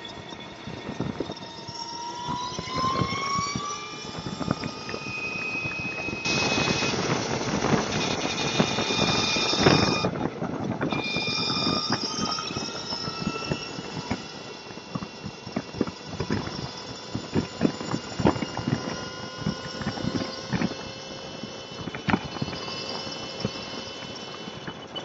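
Motorcycle riding through traffic, heard from the bike itself: a high whine of several tones that rises in pitch as it speeds up over the first few seconds, then holds steady, over wind rush and road noise. About six seconds in, a louder stretch of rushing noise lasts some four seconds.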